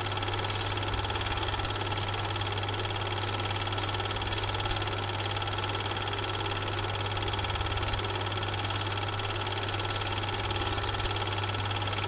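Super 8 film projector running: a steady mechanical whir and hum, with a few sharp little clicks about four seconds in.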